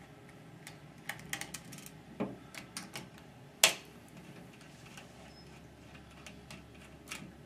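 Phillips screwdriver backing a wheel screw out of a LightRail 3.5 light-mover trolley: a scatter of light clicks and taps of metal on metal, with one sharper click about halfway through.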